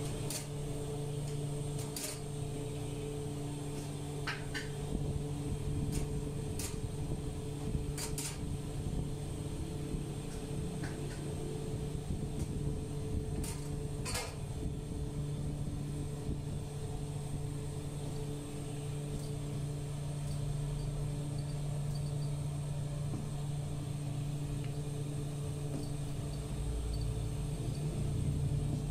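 Steady low machine hum from a running motor. Through the first half it is broken by a few sharp clicks and knocks as dough pieces are handled and weighed on a metal balance scale.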